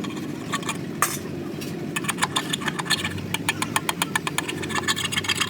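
An engine running steadily at idle. From about two seconds in, a fast run of sharp clicks or ticks, several a second, sounds over it.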